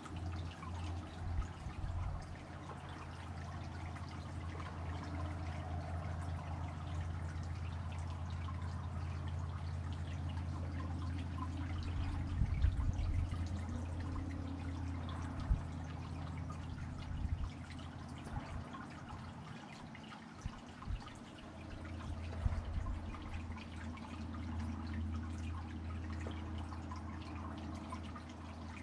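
Tiered garden fountain trickling and splashing steadily, over a low steady hum, with a few brief louder splashes or knocks.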